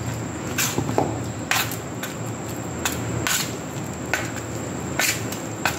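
Hand mixing wet ground urad dal paste with spices on a steel plate: irregular short squishes and scrapes of the paste against the metal, about two a second.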